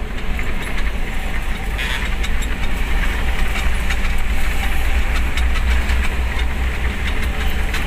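Steady low engine rumble and road noise heard from inside the cabin of an intercity bus under way, with scattered light ticks and rattles, a little louder midway.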